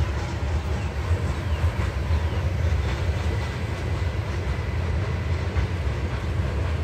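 Freight train of covered hopper cars rolling past, its wheels on the rails making a steady low rumble.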